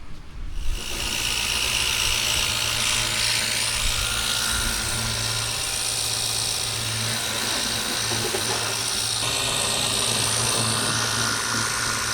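Ryobi cordless pressure washer switching on about a second in and running steadily: a motor hum under a broad hiss of spray.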